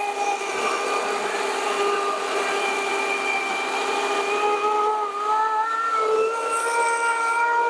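EGO 56V CS1804 18-inch cordless chainsaw cutting through a log, its electric motor giving a steady whine over the rasp of the chain in the wood. The pitch climbs over the last couple of seconds.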